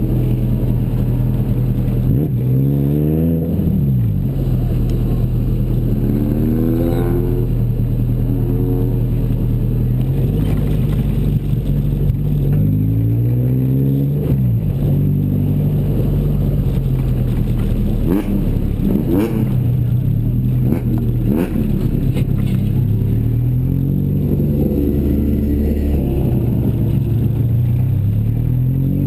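Toyota Corolla KE70 drift car's engine running close to the camera while the car creeps along at low speed, idling with several short rev rises that climb and fall back, at about 3, 7, 13, 19 to 21 and 25 seconds in.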